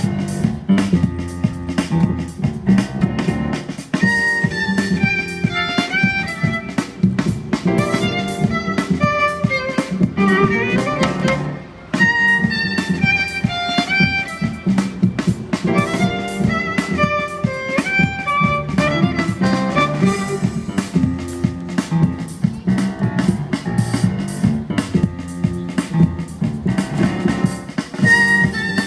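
Violin and double bass playing a pop-style instrumental. The bass is plucked over a steady beat, and a bowed violin melody comes in about four seconds in, with a brief break near the middle.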